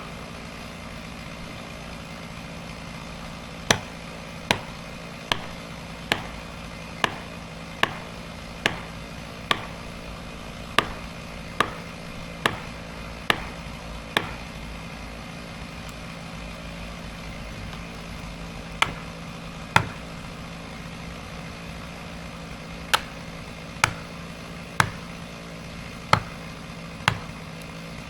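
Sharp, ringing blows struck about once a second in runs, typical of driving felling wedges or chopping during tree felling, over a small engine idling steadily.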